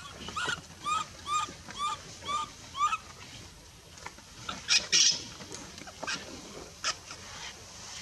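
Baby macaque crying: a run of five short, arched, squealing calls about half a second apart, then a few louder, harsher cries near the middle and scattered shorter ones after.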